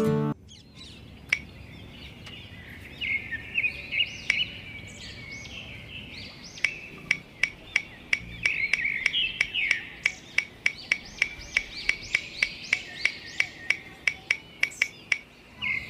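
Birds chirping, with a quick run of sharp clicks, about three a second, starting about halfway through as small coloured blocks are set one by one around the rim of a model pond.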